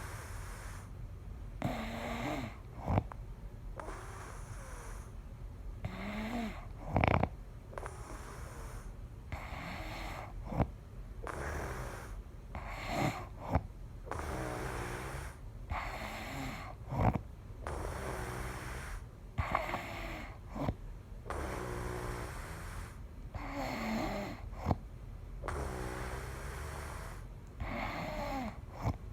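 A person snoring: a rasping, rattling breath every one to two seconds, in an irregular rhythm, broken now and then by sharp catching sounds.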